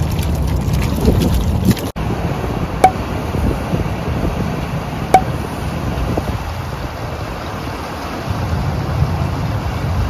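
Wind buffeting the microphone as a steady low rumble, broken by three short sharp clicks. In the first two seconds, water splashes and trickles as French bulldogs wade through shallow water over river stones.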